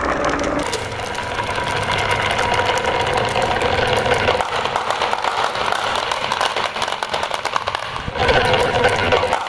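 Many small balls rolling and clattering down a marble run of curved wooden channels and plastic track pieces: a dense, fast rattle of clicks as they knock against each other and the track. The rattle gets louder about eight seconds in.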